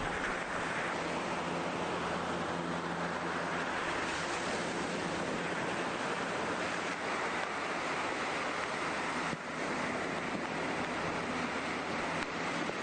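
Steady ocean surf washing in, with wind noise on the microphone.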